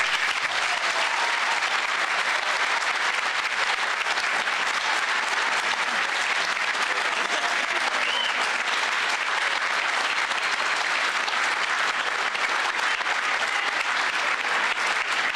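A large audience applauding steadily: many hands clapping together in a dense, even patter.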